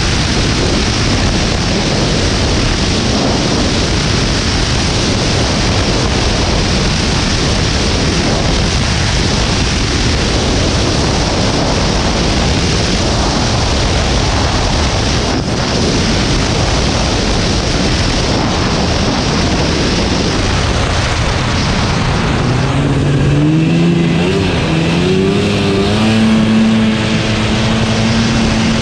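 Snowmobile running along a trail, its engine mostly buried under a loud, steady rush of wind on the microphone. Toward the end the engine note climbs in a few steps as it speeds up, then holds steady.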